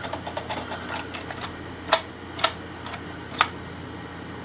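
Hard plastic parts of a toy Santa stair-climber clicking as the toy is handled: faint scattered ticks, then three sharp separate clicks in the second half, over a faint steady hum.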